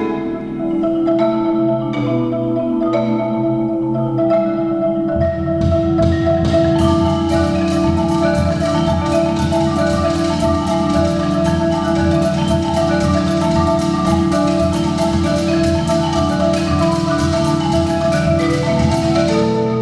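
Marimbas played together by several players, with fast, repeating mallet patterns interlocking. About five seconds in, a low part of quick strokes joins and the sound thickens.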